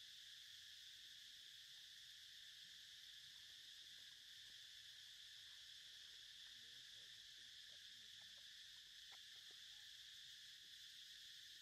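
Faint, steady high-pitched drone of an insect chorus, unbroken throughout.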